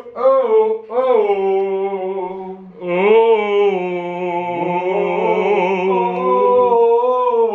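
A man singing long held notes as a vocal warm-up. There are a couple of short swooping notes in the first second, then longer sustained notes that change pitch only slightly.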